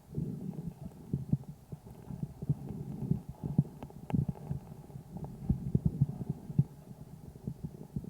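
A calf's chest heard through a stethoscope microphone: muffled low breath sounds with many short, irregular pops and thumps through them.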